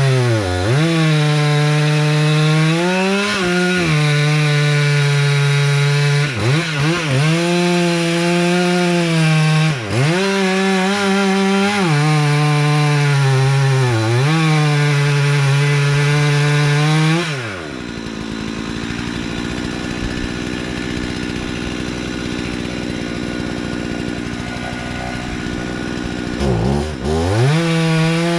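Two-stroke chainsaw at full throttle making the felling cut in a beetle-killed pine; its pitch sags repeatedly as the chain loads in the wood and then recovers. About 17 seconds in it drops to idle, and it revs up briefly again near the end.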